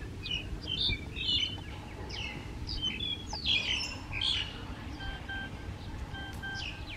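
Small birds chirping with many short, quick calls over a steady low background rumble. In the second half, two pairs of short, level whistled notes sound about a second apart.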